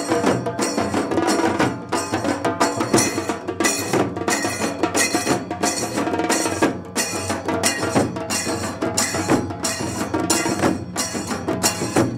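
A tassa drum band playing: sharp, rapid stick strokes on the tassa drums over rope-tensioned bass drums, in a steady rhythm.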